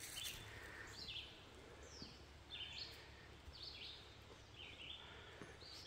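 Faint birdsong: a single bird repeating a short, high chirped phrase about once a second over a near-quiet background.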